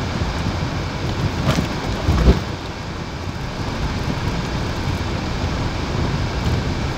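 Steady low rumble of a car driving over a cobblestone street, heard from inside the cabin, with a single thump a little over two seconds in.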